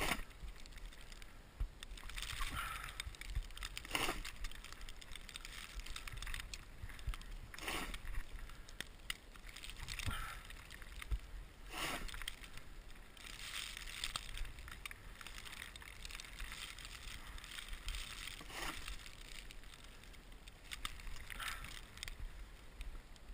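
Snow shovel scraping and scooping snow, in repeated strokes every two to four seconds.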